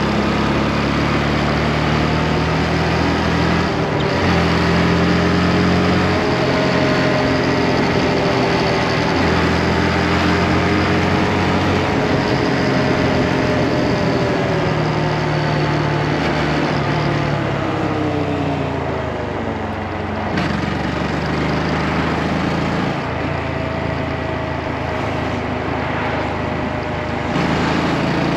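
Motorcycle engine running under way, over a steady rush of wind noise. The engine note falls about two-thirds of the way through as it slows, then picks up again near the end.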